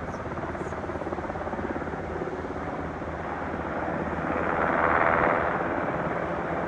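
Helicopter rotor running with a rapid, steady chop, swelling louder for about a second between four and five seconds in.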